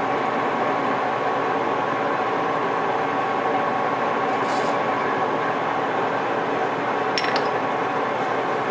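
Metal lathe running with its chuck spinning while a short dowel is machined: a steady motor and gear hum with a few light metallic clinks about four and a half and seven seconds in.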